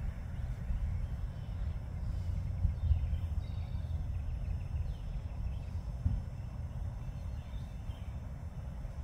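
Outdoor ambience: a low, fluctuating rumble with faint birds chirping now and then.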